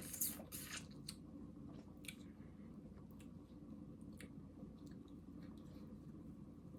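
Close-up chewing of cooked shrimp, with scattered small wet mouth clicks over a faint steady low hum.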